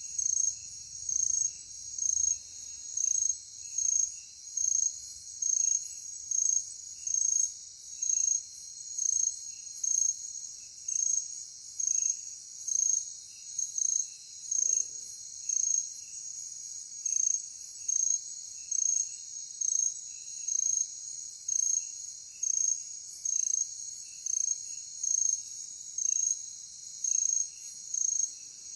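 Night insect chorus: a steady high-pitched hiss of many insects, over which one loud cricket-like chirp repeats evenly a little more than once a second, with fainter, lower chirps in between.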